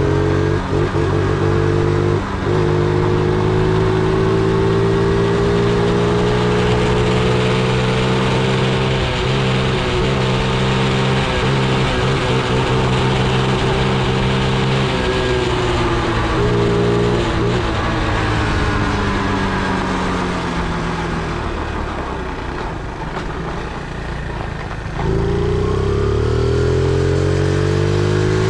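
Engine of a 50cc four-stroke single-cylinder mini bike, a Chinese Honda Monkey replica, running under way. The engine note holds and sags slowly, fades lower as the bike eases off, then about 25 seconds in the throttle opens and the pitch climbs as it accelerates.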